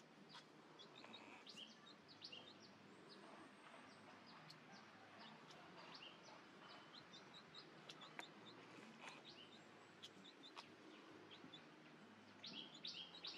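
Faint bird chirping: many short, high chirps scattered over a quiet background, with a brief, louder flurry of chirps near the end and a few faint clicks.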